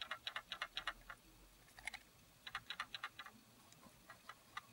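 Faint rapid clicking rattle from inside a Canon Legria HF R306 camcorder as it is gently shaken side to side. It comes in short runs of about seven clicks a second, then a few single clicks near the end. The owner takes this internal rattling for a fault and fears something inside may break.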